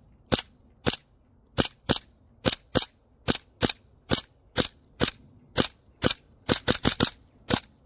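Airsoft pistol firing shot after shot, about twenty sharp cracks at two to three a second, coming faster around two-thirds of the way through.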